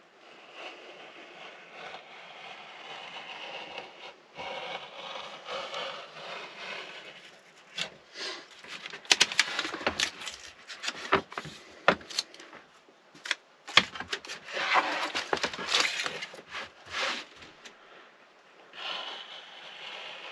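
Sheets of foil-backed sound-deadening material being handled against a van's sliding door. Scraping and crinkling at first, then a busy run of sharp taps and knocks with more crinkling through the middle.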